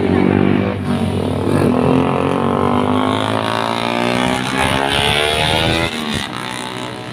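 Motorcycle and scooter engines passing one after another close by. Their engine notes slide down in pitch as each goes past, with a short lull about six seconds in.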